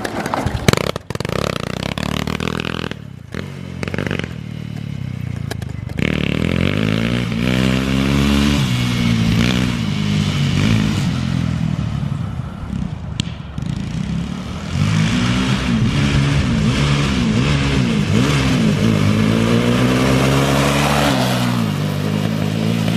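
Demon 160cc single-cylinder four-stroke pit bike engine fitted in a mobility scooter, being bump-started: a few seconds of clattering as the scooter is pushed, then the engine catches about six seconds in and runs, its revs rising and falling as it is ridden away.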